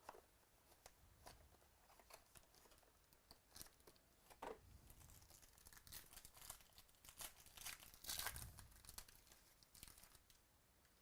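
A trading-card pack wrapper being torn open and crinkled by hand: a faint run of sharp crackles and short rips, busiest about two-thirds of the way through.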